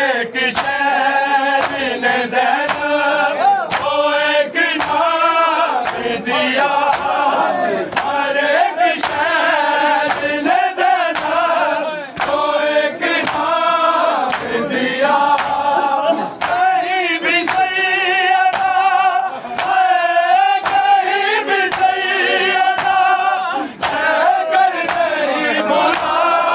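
A group of men chanting a noha, a Shia lament, together in a steady refrain. Sharp, even strikes, about two a second, keep the beat: hands striking chests in matam.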